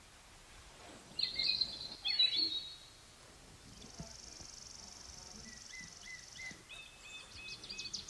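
Small birds calling outdoors in short high chirps, twice early on and in a quick repeated run near the end, with an insect's steady high trill for a couple of seconds in the middle.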